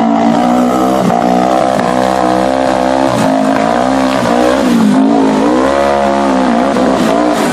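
Off-road vehicle engine running hard at high revs, its pitch rising and dipping slightly with the throttle.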